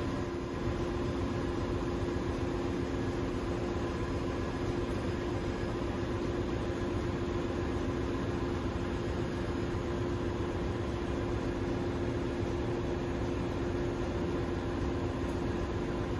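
Steady drone of a ship's engine-room machinery: an even rumble with a constant low hum, unchanging throughout.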